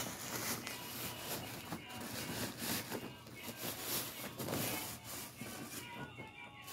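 Rustling and scratching of a drawstring gift bag being opened by hand and a soft gift in a white plastic bag being pulled out.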